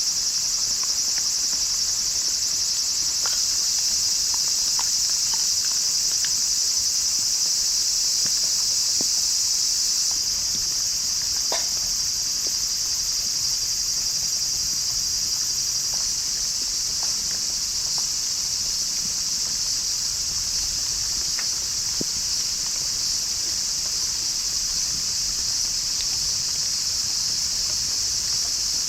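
Steady chorus of crickets and other night insects, one dense high-pitched trill, with a few faint scattered ticks.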